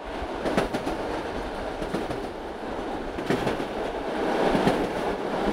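Train running on rails, a steady rumble with irregular clacks of the wheels over the track, slowly growing louder.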